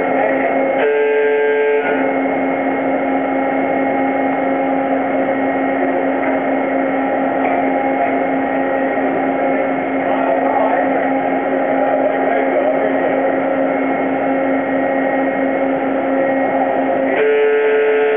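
Tunnel boring machine working, a loud steady machine hum with a constant droning tone. A harsh buzzing warning alarm cuts in for about a second just after the start and again near the end. The alarm sounds while the machine's huge hydraulic arms lift a concrete lining segment into place, to keep workers clear.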